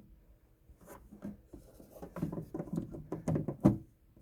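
Plastic headlight wiring connectors being handled and pushed back onto a new halogen low-beam bulb: a run of irregular small clicks and knocks, ending in one sharp click as a connector snaps home.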